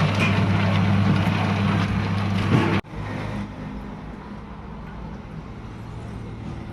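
Steady hum and rattle of machinery running, cut off abruptly about three seconds in, followed by a quieter, even background noise.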